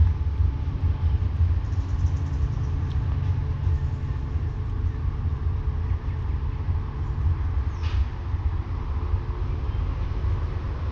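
SRT CSR diesel-electric locomotives idling with a steady low rumble and engine hum. A brief high sound cuts in about eight seconds in.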